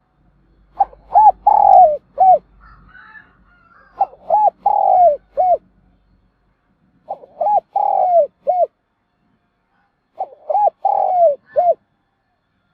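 Spotted dove cooing its calling song: four phrases of four notes, the third note long and falling, repeated about every three seconds.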